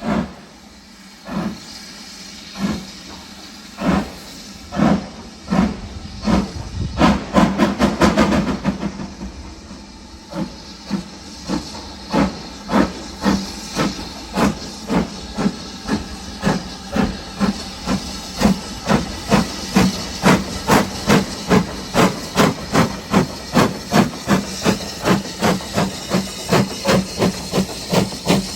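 Steam locomotive pulling away, its exhaust chuffs over a steady hiss of steam. The beats start slow, about one every second and a half, crowd into a quick flurry around seven to eight seconds in, then settle into a steady, quickening beat of about two a second.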